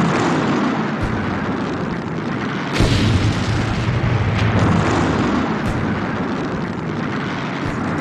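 Battle sounds: a continuous rumble of explosions, with scattered sharp cracks and booms, the loudest about three seconds in.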